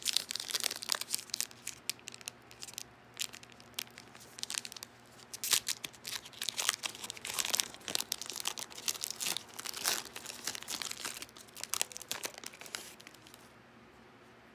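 A foil trading-card pack being torn open and crinkled in the hands: irregular crackling, crinkling rustles that stop about a second before the end.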